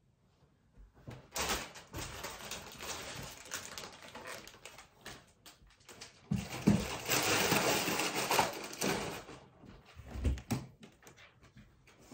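Rustling and scuffling with many small knocks, starting about a second in, loudest between about six and nine seconds, and dying away near the end.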